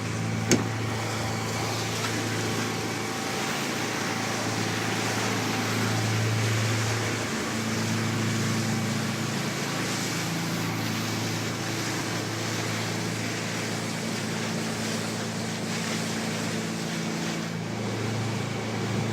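A boat's engine running steadily, a low even hum heard on board, with a single sharp click about half a second in.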